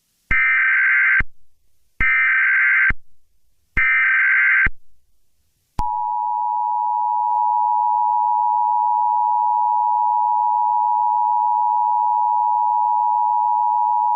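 Emergency Alert System broadcast opening: three separate one-second bursts of SAME header data tones, then, about six seconds in, the steady EAS two-tone attention signal held for about eight seconds.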